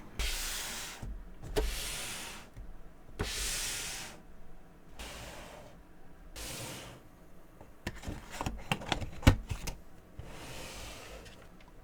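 Handling of a Funko Pop's cardboard window box: a series of separate sliding, rubbing swishes, each about a second long, then a cluster of sharp clicks and taps about nine seconds in.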